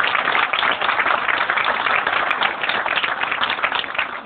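Applause from a crowd, many hands clapping densely.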